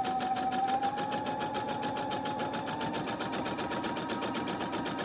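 Electric sewing machine running steadily at speed while stitching a seam, its needle going in a rapid, even rhythm of strokes. The motor whine creeps up in pitch over the first couple of seconds, then holds.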